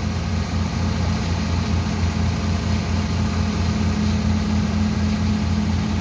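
Diesel engine of a heavy tipper dump truck running steadily with a low pulsing hum while its hydraulic hoist raises the loaded body for tipping.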